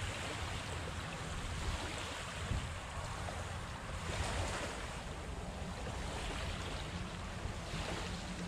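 Small waves washing onto a sandy shore, swelling and fading every second or two, with wind rumbling on the microphone.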